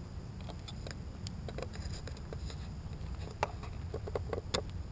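Low steady rumble of wind on the microphone, with scattered light clicks and taps, the sharpest about three and a half and four and a half seconds in.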